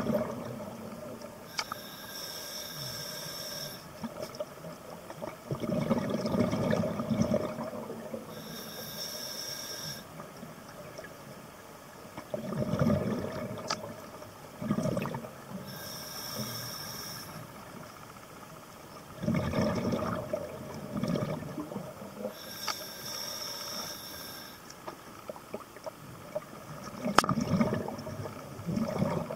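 Scuba diver breathing through an open-circuit regulator underwater: a hiss on each inhale and a rush of exhaust bubbles on each exhale, about one breath every six to seven seconds.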